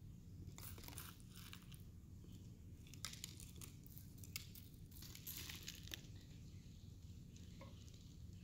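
Faint rustling and scraping of dry dyed rice being scooped with spoons and poured into small plastic water bottles, coming and going several times, with a few light clicks.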